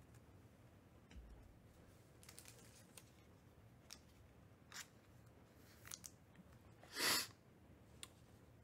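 Faint rustling and light ticks of trading cards and pack wrappers being handled, with one brief louder rustle about seven seconds in.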